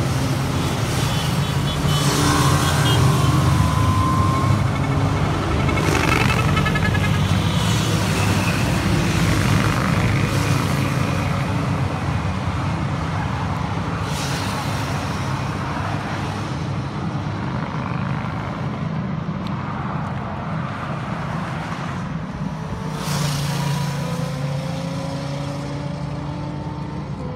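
Motorcycles and cars passing on a motorway: a steady engine drone with tyre rush that swells several times as vehicles go by, and engine notes that slide in pitch as they pass.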